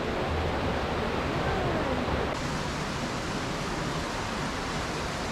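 Small rocky stream cascading through a ravine, a steady rush of falling water.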